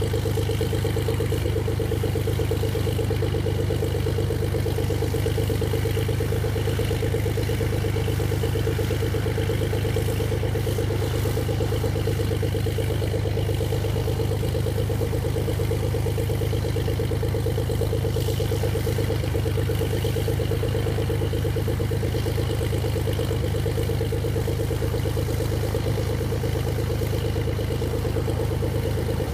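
Beechcraft S35 Bonanza's Continental IO-520 flat-six engine idling steadily on the ground, propeller turning, with no change in speed.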